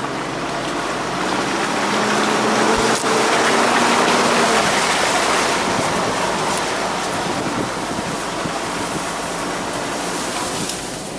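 Off-road 4x4 vehicle engine running under a loud, steady rushing noise. The rush swells about two seconds in and eases after about five seconds.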